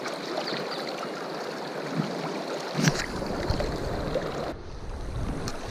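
Fast-flowing river water rushing steadily around a wading angler, with a low rumble joining about halfway through.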